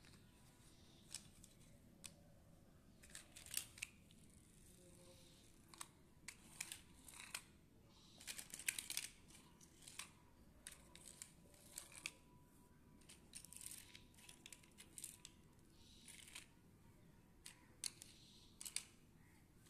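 Small plastic toy cars being picked up, set down and pushed into a line on a cloth sheet: quiet, scattered clicks and clacks of plastic with soft rustling of the cloth.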